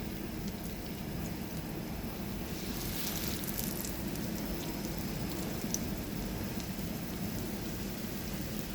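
Zucchini and minced-meat patties sizzling in hot oil in a frying pan: a steady frying hiss, with a brighter burst of crackle about three seconds in.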